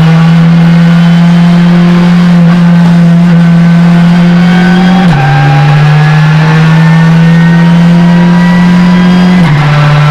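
Touring race car engine heard from inside the roll-caged cabin, loud and pulling under acceleration with its pitch climbing steadily, then dropping sharply at two upshifts, about five seconds in and near the end.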